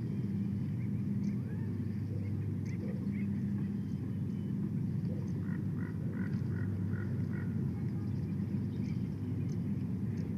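Steady low rumble on the nest-cam microphone, with a quick run of about six short calls from a bird a little past the middle and faint high chips scattered throughout.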